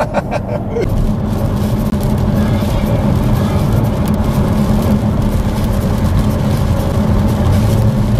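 Car cabin noise while driving on a wet motorway: a steady low engine drone mixed with tyre and road noise.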